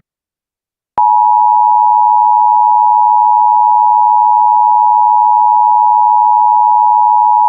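Emergency Alert System attention signal: the loud, steady two-tone alarm that precedes an emergency broadcast message. It starts about a second in and holds unchanged.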